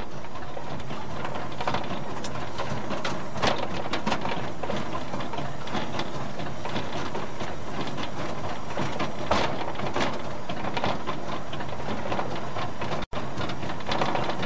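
Small narrow-gauge steam locomotive heard from its footplate, running light round its coaches: steady running noise with frequent irregular clicks and knocks from the wheels and motion on the track. The sound cuts out for an instant about 13 seconds in.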